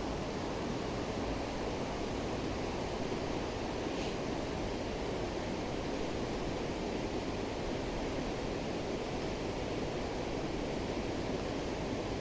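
Steady rush of a river in spate, its water running high and fast.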